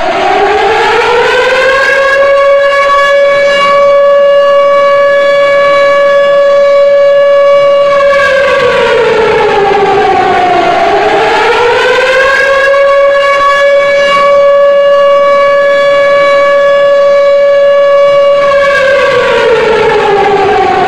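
Civil defense siren sounding a single tone with overtones. It rises, holds steady for several seconds, falls, then rises and holds again before falling near the end. The siren marks the two-minute moment of silence.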